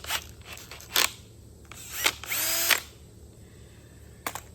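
Milwaukee power drill with a Velcro sanding pad fitted, run in short bursts: a few quick blips of the trigger, then one longer spin-up a little after two seconds in, with the motor pitch rising. A sharp click near the end.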